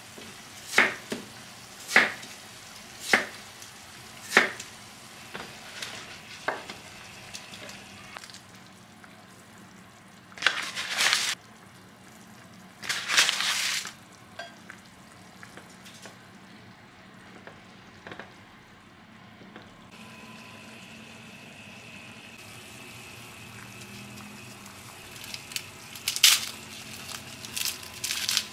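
A kitchen knife slicing Japanese yam (nagaimo) on a wooden cutting board, about one stroke a second for six strokes, the last ones lighter. Then two brief hissing bursts from the simmering soup pot, a quiet stretch of simmering, and near the end the dry crackle of papery garlic skin being peeled by hand.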